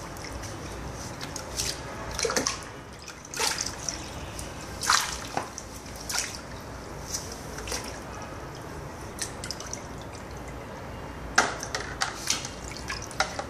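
Water dripping and splashing from a lifted, wet bundle of hair back into a basin of water, in irregular splashes a second or more apart.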